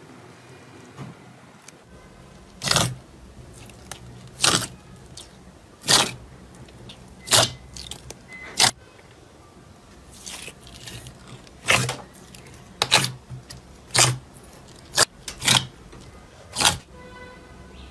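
Clear slime being pressed and poked by hand, giving about a dozen short, sharp wet squelches, roughly one every second or so from about three seconds in.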